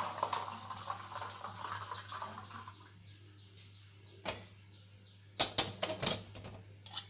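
Boiled milk pouring from a steel pan into a glass jar, a splashing stream that stops about three seconds in. Then a few separate sharp knocks and clinks.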